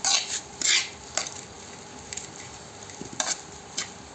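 A spoon stirring and scraping through bitter eggplant curry in a pan, with several quick strokes in the first second and two more near the end, over a faint steady sizzle.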